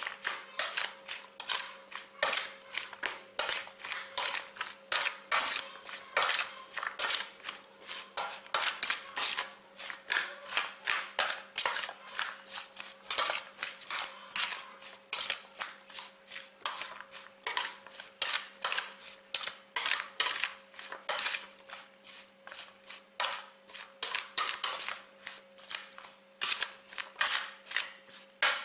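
Metal spoon scraping and clinking against a metal baking tray while tossing sliced cucumber and carrot pickle, about two or three uneven strokes a second.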